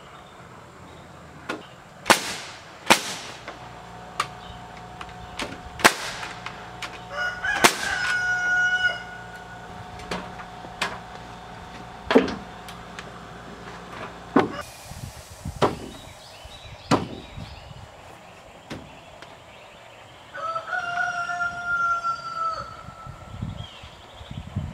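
Pneumatic framing nailer firing nails into wooden roof framing, over a dozen sharp shots at uneven intervals. A rooster crows twice, about eight seconds in and again near the twenty-second mark.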